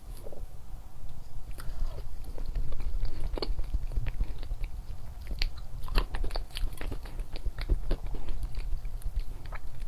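Close-miked eating of chocolates: crisp crunching bites and chewing, many short sharp crackles at irregular intervals, busiest from about five to eight seconds in, over a steady low hum.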